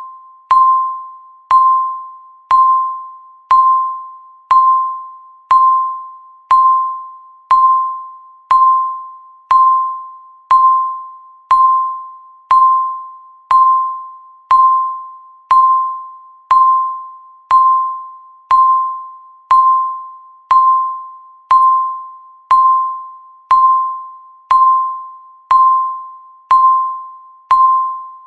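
Countdown timer's ticking sound effect, once a second: each tick is a sharp click with a ringing, bell-like tone that fades away before the next one.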